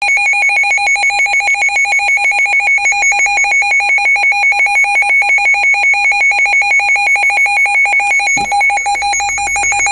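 Weather alert radio's built-in alarm going off for a weather warning: a loud electronic beep, steady in pitch and pulsing rapidly and evenly.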